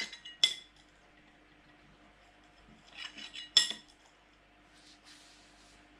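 Small metal reel drag washers clinking against a ceramic plate as they are set down and shifted by hand. There is a cluster of clinks at the start and another about three seconds in.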